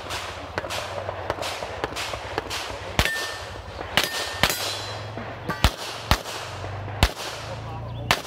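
Handgun shots fired in singles and quick pairs, about a dozen of them, during a practical-shooting stage. Two of them, about three and four seconds in, are followed by a short metallic ring.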